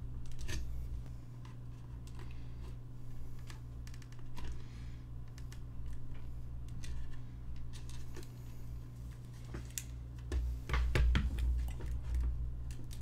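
Light clicks and taps of hands handling the plastic PinePhone keyboard case as a cardstock shim is slid in under its pogo-pin contacts, with a busier run of clicks and knocks about ten to eleven seconds in, over a steady low hum.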